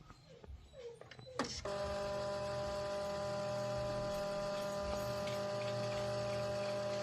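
Silhouette Cameo vinyl cutter starting up with a click about a second and a half in, then its motors running with a steady whine of several tones.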